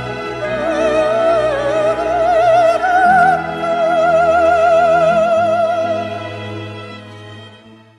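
A male sopranist's high, operatic voice with wide vibrato sings the closing phrase of a Christmas song over instrumental accompaniment. He holds a long final note from about halfway, and it fades away near the end.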